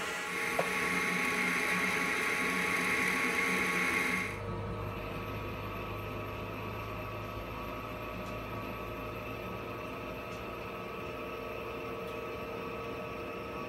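Metal lathe drilling into spinning SG iron stock with a twist drill, a steady hissing cutting noise. About four seconds in it changes abruptly to the lathe running more quietly with a low hum as a single-point tool cuts an internal thread in the bore, with a few faint ticks.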